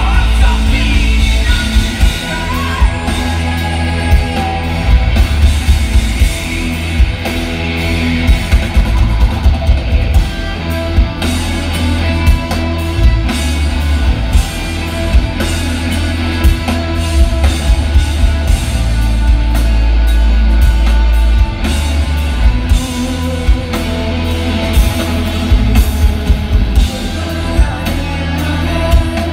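Live rock band playing loud: electric guitars, bass guitar and drums, with singing.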